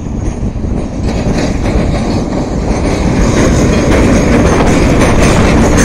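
Hitachi electric locomotive No. 1101 passing close by on the track. Its wheels run on the rails, growing louder over the first three seconds as it nears, then staying loud.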